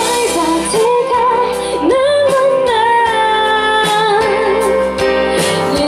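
Female singer performing a slow, sad Thai pop ballad live, with long held and gliding sung notes over band accompaniment.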